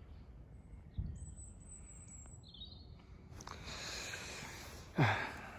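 Outdoor background noise with a few short, high bird chirps, a soft thump about a second in, and near the end a brief loud breathy sound falling in pitch.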